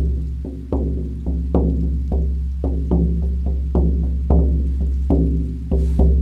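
18-inch deerskin shamanic frame drum beaten in a steady run of deep, ringing strokes, about three a second. Its damp skin has, in the maker's words, probably gone a little deeper in tone from absorbing moisture.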